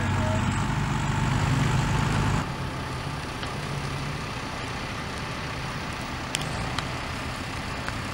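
Fire engine's diesel engine running steadily at idle, a low hum with a few steady tones. The sound drops suddenly about two and a half seconds in to a quieter hum, with two sharp cracks later on.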